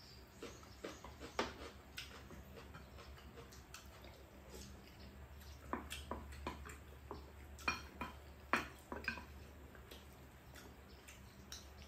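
Wooden spoons tapping and scraping against ceramic bowls as two people eat: a scatter of light clicks, busiest past the middle, over a faint low steady hum.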